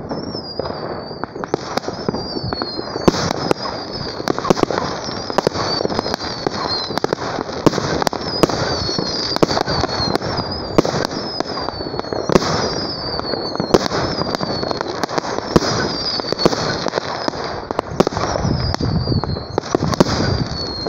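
Firework battery (cake) firing a continuous finale: rapid launch thumps and aerial bursts with dense crackling. A high whistle falls in pitch about every second and a half.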